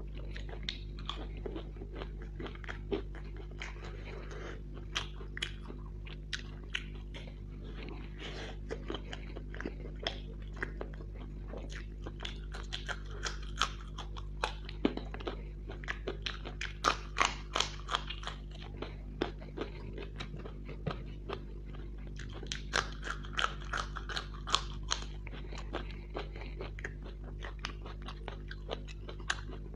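Close-miked eating of crisp deep-fried samosas and battered fritters: crunchy bites, crackling and wet chewing going on throughout. The crunching comes thickest in two bursts, about halfway through and again a few seconds later, over a steady low hum.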